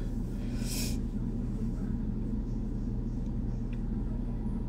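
Steady low room hum and rumble, with one short breathy hiss a little under a second in.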